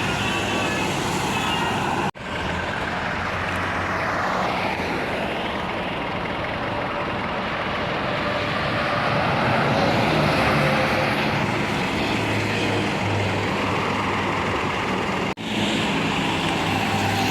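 Large buses passing at the roadside: engine and tyre noise swelling and fading. For the first two seconds several steady high tones sound together, a multi-tone bus horn. Two abrupt cuts break it up, about two seconds in and near the end.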